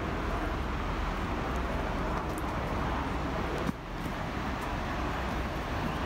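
Steady rushing outdoor noise with a low rumble, like wind buffeting the microphone. The level drops abruptly a little over halfway through.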